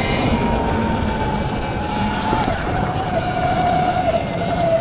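79bike Falcon Pro electric dirt bike's motor whining under way, its pitch drifting gently up and down with the throttle, over a steady rumble of wind and tyres on the trail.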